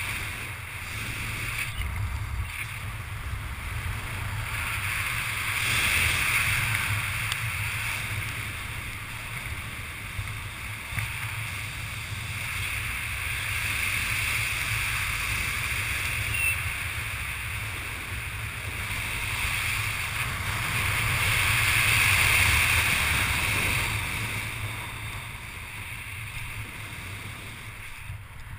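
Wind rushing over the camera microphone under an open ram-air parachute canopy: a steady rush with a low rumble that swells louder about six seconds in and again around twenty-two seconds.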